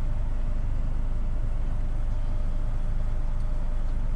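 Steady low-pitched test tone from a car subwoofer amplifier, held at one level while the gain is set just below clipping.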